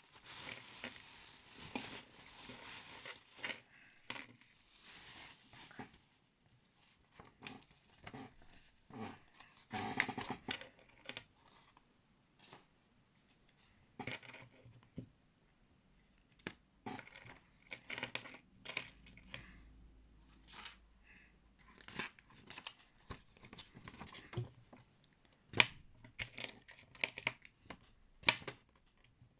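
Paper being handled: the paper wallet rustling and crinkling. A dense rustle for the first few seconds, then scattered short rustles and clicks.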